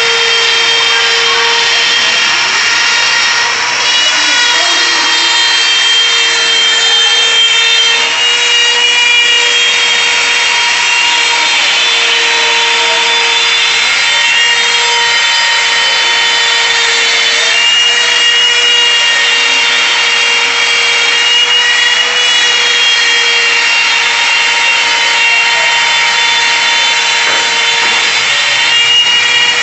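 DeWalt compact router running as the spindle of a CNC router, its bit cutting an engraved letter outline into a wooden board. A steady high whine with pitch that dips and shifts slightly every few seconds.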